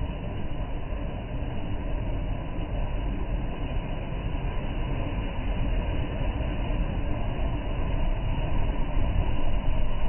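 Choppy sea waves surging and breaking over concrete tetrapod blocks along a seawall: a continuous deep wash of water that grows louder near the end as a bigger wave rolls in.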